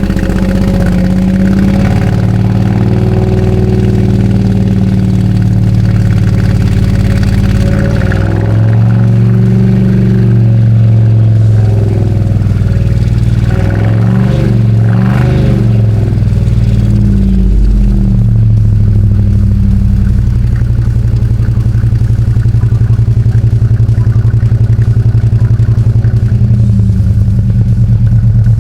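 Holden VT Commodore's 304 (5.0-litre) V8 running after standing eight years, its speed rising and falling for a while in the middle. It runs unevenly, which the owner takes for one cylinder misfiring, a spark plug or similar.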